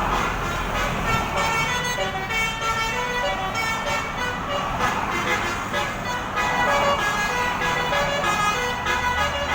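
Basuri (telolet-style) multi-trumpet bus air horn playing a tune: several held notes sounding together and stepping from pitch to pitch about every half second, over a low steady rumble.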